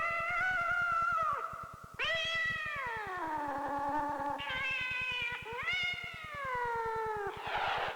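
A cat yowling in four long, drawn-out calls, most of them sliding down in pitch, with a brief breathy noise near the end.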